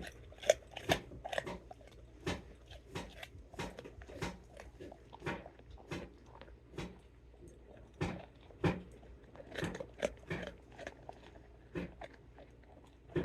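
A dog chewing raw carrots, loud crisp crunches coming irregularly, a few per second.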